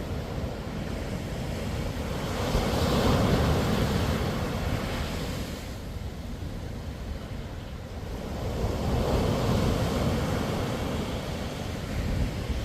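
Sea waves breaking on a sandy beach: the surf swells up and washes in twice, about two seconds in and again past the middle, under a constant low rumble of wind on the microphone.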